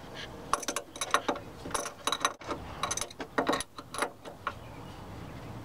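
Crescent wrench clicking and clinking against the power steering pressure hose fitting nut as it is tightened, a run of irregular metal clicks that stops about four and a half seconds in.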